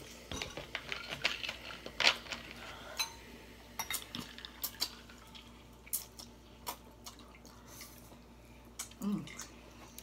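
Metal forks clinking and scraping against ceramic bowls, with ice clinking in glass jars, as spaghetti is eaten: a run of scattered sharp clinks, the loudest about two seconds in. A brief voice sound falling in pitch comes near the end.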